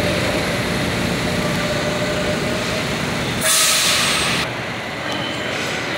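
New York City subway train rolling along the platform with a steady rumble, then a loud burst of air hissing for about a second, a little past halfway.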